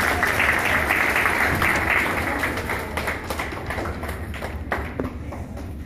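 An audience of schoolchildren clapping, loudest over the first two or three seconds and then thinning out to scattered claps.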